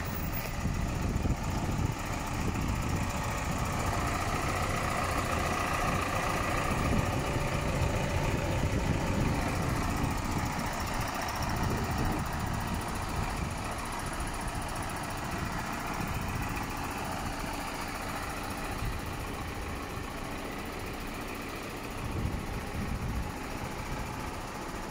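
Isuzu 4HK1 four-cylinder diesel engine of an Isuzu ELF truck idling steadily.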